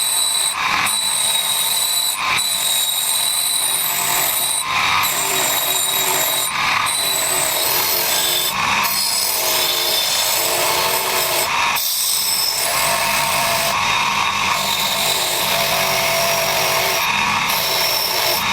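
A power tool working on metal: a steady high-pitched whine and hiss, broken by short gaps every couple of seconds as the tool comes off the part.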